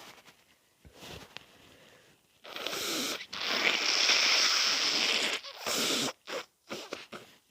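A person congested with a cold blowing their nose hard and wetly into a tissue, one long blow of about two seconds starting about three seconds in, followed by several short sniffs.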